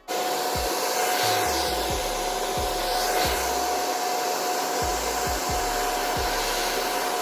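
Hand-held hair dryer switched on and running steadily with a whirring rush of air and a constant motor whine, blowing on freshly applied lace-wig glue to dry it until it turns tacky.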